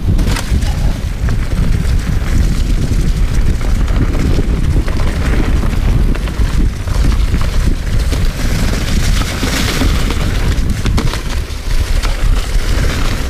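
Wind buffeting the microphone of a chest-mounted camera on a mountain bike riding fast downhill, mixed with the tyres rolling over a leaf-covered dirt trail and the bike's frame and parts rattling.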